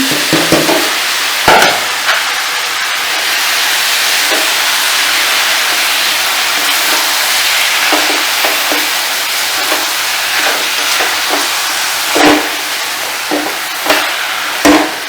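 Paneer bhurji with tomato frying in a pan, a steady sizzling hiss, with a few sharp knocks of the stirring spoon against the pan, the clearest about a second and a half in, about twelve seconds in and near the end.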